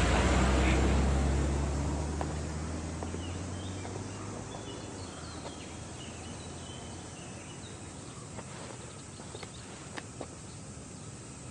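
A Mercedes-Benz sedan pulling away, its low engine hum fading out over the first few seconds. Then a quiet outdoor ambience with faint bird chirps and a couple of light clicks near the end.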